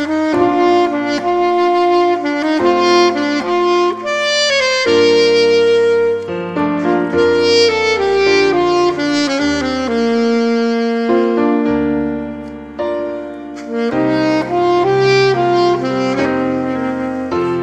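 Alto saxophone playing a melody with a piano accompaniment; the saxophone comes in at the start.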